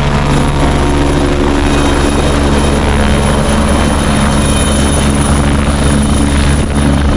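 Helicopter running loud at close range: a steady rotor beat with a thin high turbine whine over it, the whine dipping slightly near the end.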